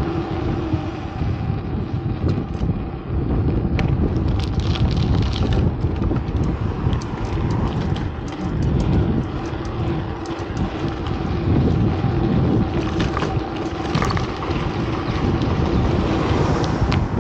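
City street noise of passing traffic, with wind buffeting the microphone and a steady engine hum underneath.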